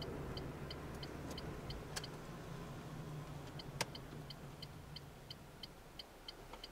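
A car's turn-signal indicator ticking steadily about three times a second inside the cabin, over the low hum of the engine and road noise, which fades as the car slows. Two sharper single clicks come about 2 and 4 seconds in.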